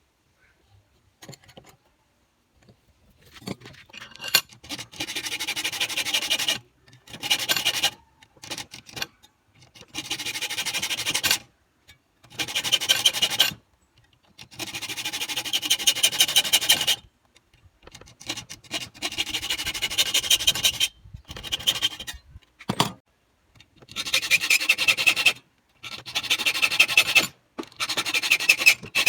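Metalwork on a threaded bar: repeated bursts of harsh rasping, each one to three seconds long with short pauses between them.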